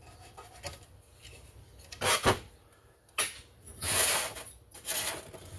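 Screwdriver, screws and chainsaw parts handled on a workbench: a few sharp clinks and knocks, then a louder scraping rub about four seconds in.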